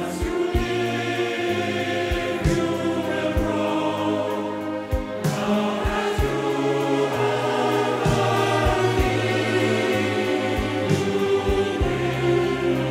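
Music: wordless choir-like vocals over sustained chords and held bass notes, with percussive hits at regular intervals.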